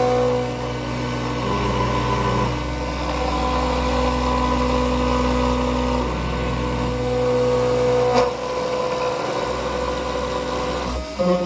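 Small desktop CNC router milling a clear plastic sheet: the spindle motor runs and the stepper motors whine together as several steady tones that shift to new pitches every few seconds as the cutter moves. A single sharp click about eight seconds in.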